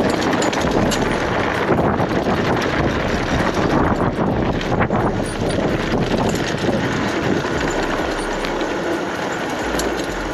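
Fat-tyre bicycle rolling fast downhill over loose gravel and rutted dirt: a steady tyre rumble with constant small clicks and rattles as the rigid, unsuspended bike jolts over stones.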